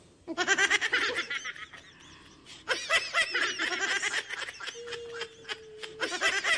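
A woman laughing in two long bouts of rapid pulses, with a short break about two seconds in.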